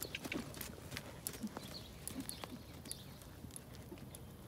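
Hoofbeats of a ridden horse cantering on a sand arena: soft, irregular thuds that grow fainter as the horse moves away.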